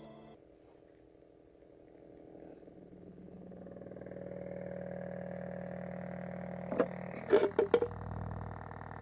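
A small bare speaker driver, run from a car amplifier on AA batteries, buzzes with a steady distorted low tone that swells up over a couple of seconds. About seven seconds in, a quick cluster of sharp clicks comes as the speaker's metal frame is handled and lifted. After that the tone drops lower.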